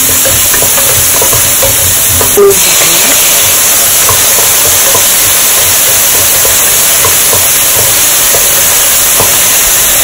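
Chopped onion and tomato frying on high heat in oil in a pressure-cooker pan: a steady sizzle, with a wooden spatula stirring and scraping in small scattered clicks. One brief louder sharp sound stands out about two and a half seconds in.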